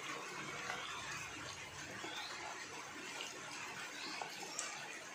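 A hand squishing and kneading marinated chicken pieces with corn flour and rice flour in a bowl, a soft wet squelching with small irregular scrapes.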